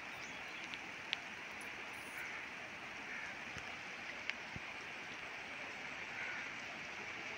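Steady rushing of floodwater flowing across a flooded field, with a couple of sharp ticks.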